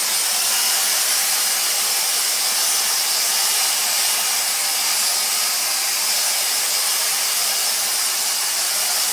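Dyson DC35 cordless handheld vacuum cleaner running on its max boost suction setting with the combination tool fitted: a loud, steady airy rush with a faint high whine.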